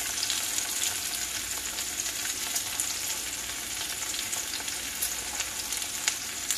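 Cornmeal-breaded yellow squash frying in hot oil in a cast-iron skillet, a steady sizzle with a few faint clicks.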